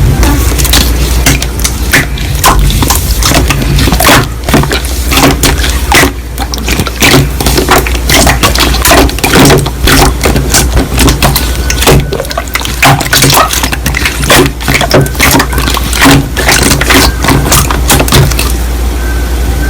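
Slime being squished and pressed by hand, with a dense, irregular stream of sticky clicks, pops and crackles over a steady low rumble.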